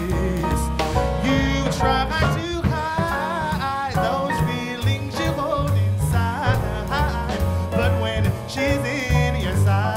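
A live jazz quintet swinging: a male vocalist scat-singing over a walking upright bass, piano, drum kit with cymbals, and trumpet.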